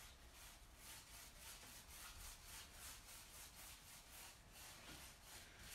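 Faint, quick, even strokes of a paintbrush spreading a second coat of chalk paint over a box, about three strokes a second.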